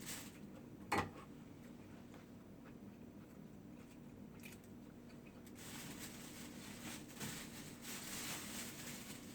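Person chewing food close to the microphone, with one sharp click about a second in and soft chewing noise in the later part.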